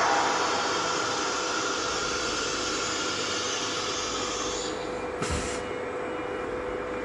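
Blue Elephant 1530 ATC CNC router running a job: the spindle's steady tone under a hiss of the bit cutting, which fades out about four and a half seconds in. A short burst of hiss with a low thump follows just after five seconds.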